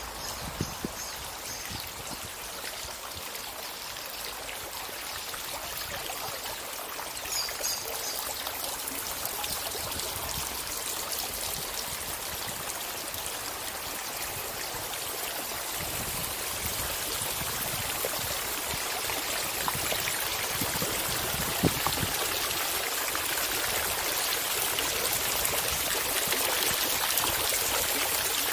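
Running water from a garden fountain, a steady splashing rush that grows gradually louder as it comes closer.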